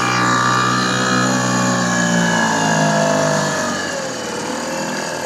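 Yamaha 2 hp outboard motor running under way, its note falling gradually and dropping lower about three and a half seconds in as the engine slows.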